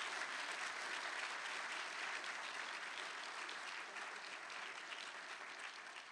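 Audience applauding, a dense steady clapping that slowly dies away over the last few seconds.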